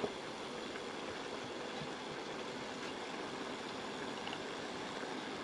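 Chicken pieces simmering in a dark rawon-spiced sauce in a wok: a steady sizzle and bubble.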